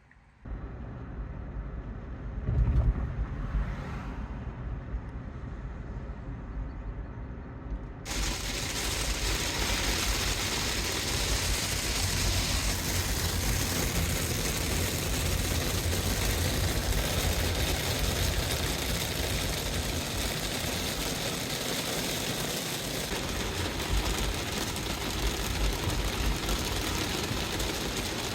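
Hail and rain falling hard, a steady hiss with a low rumble underneath. About 8 seconds in it suddenly becomes louder and fuller.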